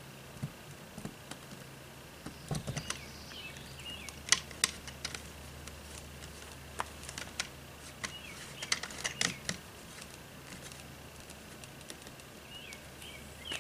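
Scattered plastic clicks and taps as a Camco Power Grip 30-amp locking plug is pushed and twisted into an RV's power inlet, over a steady low hum.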